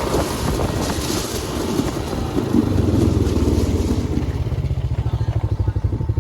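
A vehicle engine running steadily with a low rumble, its regular pulsing growing more distinct about two-thirds of the way through.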